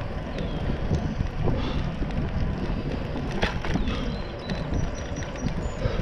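Wind buffeting a GoPro Hero 7's microphone on a moving bicycle, a steady low rumble with tyre noise from the paved path. A sharp click about three and a half seconds in.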